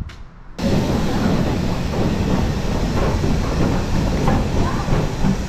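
Passenger train running along the track: a steady rumble with clattering of the wheels over the rails. It starts abruptly about half a second in.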